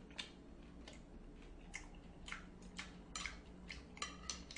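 A person eating pork cutlet: short, irregular wet clicks and smacks of chewing, about a dozen spread through, over a faint steady low hum.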